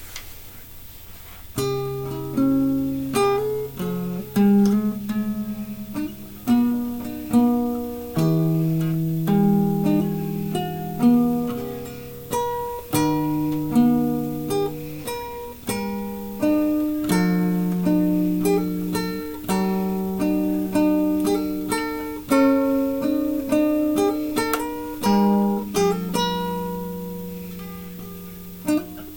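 Acoustic guitar played fingerstyle: single plucked notes ringing out in a melody over lower bass notes, starting about a second and a half in.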